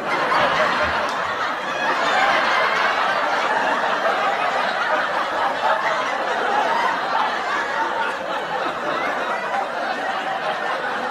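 Sitcom laugh track: a large studio audience laughing together, many voices overlapping in one continuous, steady swell.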